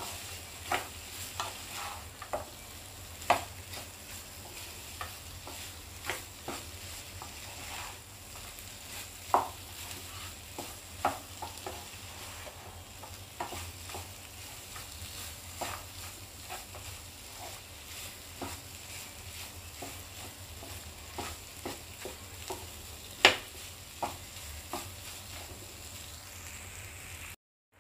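Chicken pieces sizzling in a thick, dry masala in a nonstick frying pan while a spatula stirs and turns them, with scattered taps and scrapes of the spatula against the pan; the loudest knock comes near the end.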